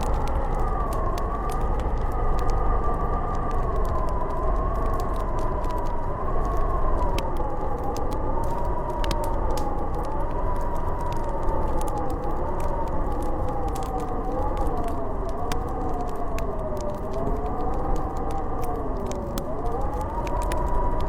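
Snowstorm wind howling, a wavering whistle that slowly rises and falls in pitch over a low rumble, with the faint crackle of a wood fire in a fireplace.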